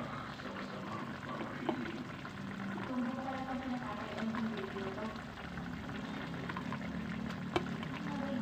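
Chicken adobo simmering in a shallow pan, the soy-vinegar sauce bubbling steadily. Two sharp clicks sound over it, one about two seconds in and a louder one near the end.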